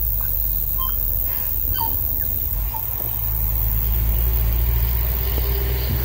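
A tui gives a few short whistled notes, some sliding in pitch, in the first three seconds, faint against the steady low rumble of a passing truck. The truck's rumble is the louder sound and swells a little in the second half.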